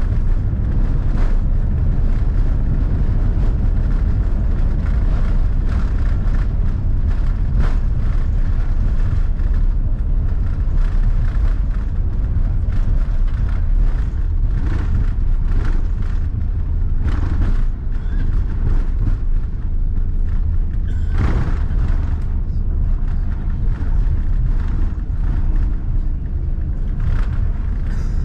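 Airbus A350-900 cabin noise during the landing rollout, heard from a seat over the wing: a steady low rumble of the wheels on the runway and the engines, broken by light knocks and a sharper knock about 21 seconds in.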